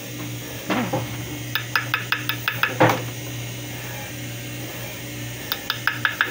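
Light metallic clicks in quick runs, about five or six a second, from a steel hand setting tool working the prongs of an 18K gold diamond ring during stone setting, over a steady low hum.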